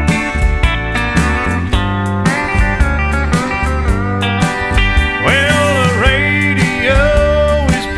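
Country music instrumental: steel guitar sliding over a steady drum beat and bass.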